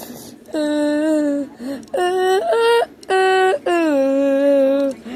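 A child singing held notes without clear words, in three phrases with short breaks, the voice leaping up and down in pitch in the middle phrase.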